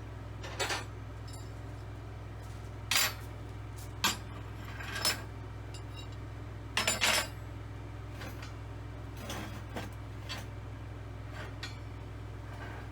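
Scrap metal pieces clanking and clinking as they are handled, with single sharp knocks a second or two apart and a quick run of three about seven seconds in, over a steady low hum.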